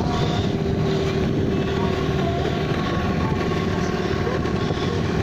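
Small motorboat's engine running steadily under way, a constant drone with a steady hum, mixed with water and wind noise.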